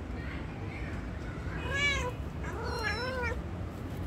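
A kitten meowing: a short meow a little under two seconds in, then a longer meow that wavers up and down in pitch about three seconds in.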